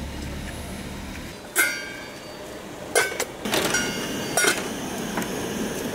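Metal cooking gear clinking: several sharp, ringing clanks of utensils against a pot or pan. A low hum stops about a second and a half in.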